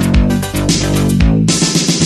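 Electronic music with a steady drum-machine beat and bass line.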